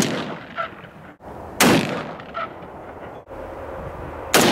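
Rifle shots from an AR-15 being sighted in: one right at the start, another about a second and a half in and a third near the end. Each is a sharp crack with a trailing echo.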